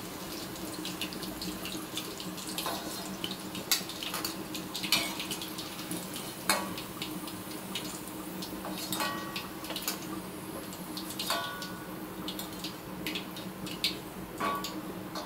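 A steady low hum with scattered clicks and light crackles throughout. Two or three of the clicks, about nine and eleven seconds in, ring briefly like light metal.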